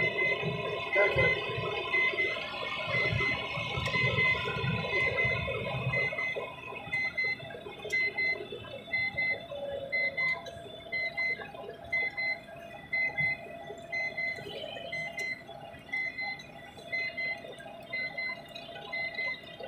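A short, high electronic warning beep repeating at an even pace in a truck cab. For the first six seconds a louder, irregular low rumbling clatter lies under it.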